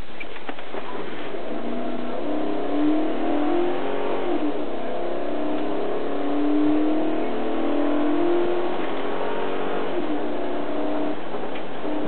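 Patrol car's engine revving hard under heavy acceleration during a high-speed pursuit, its pitch rising and falling, over steady road noise.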